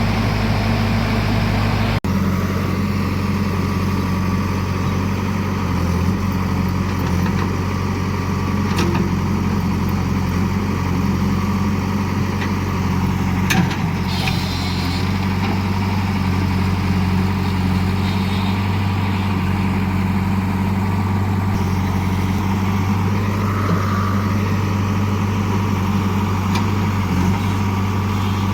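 Diesel engine of a JCB earthmoving machine running steadily at a constant speed, with a brief sharp clank about halfway through.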